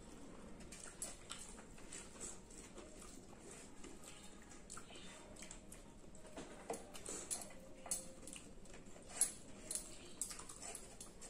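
Faint close-up eating sounds: chewing and lip-smacking of two people eating rice and saucy Manchurian by hand, with fingers scraping china plates. Soft clicks and smacks come irregularly, with one sharper click a little after nine seconds.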